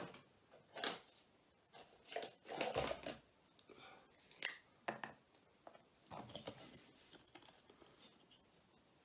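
Scattered light clicks and rustles of handling as a plastic model locomotive chassis and a needle oiler are picked up and readied for oiling.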